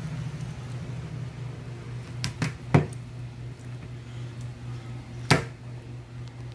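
A smartphone knocking against a hard tabletop as it is handled and set down: a few sharp knocks, the loudest about three seconds in and another past five seconds, over a steady low hum.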